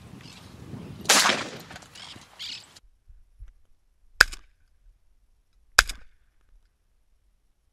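Three shotgun shots fired at doves: one about a second in with a longer ringing tail, then two sharp, short cracks about a second and a half apart near the middle.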